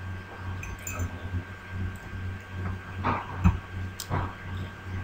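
Steady low hum that swells and fades slowly, with a faint high whine, under a few soft clicks from the computer mouse or keyboard. One low thump comes about three and a half seconds in.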